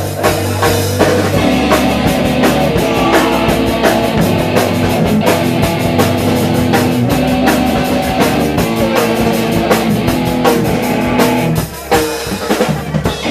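Live punk rock band playing loud, with no vocals: electric guitar, bass guitar and drum kit with steady drum hits. The band breaks off briefly about a second and a half before the end, then plays a few last hits.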